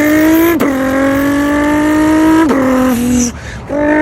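Vocal imitation of a Nissan GT-R accelerating through the gears, done with the mouth: a buzzing, engine-like voice that climbs slowly in pitch and drops sharply at each gear change, twice, then breaks off briefly near the end.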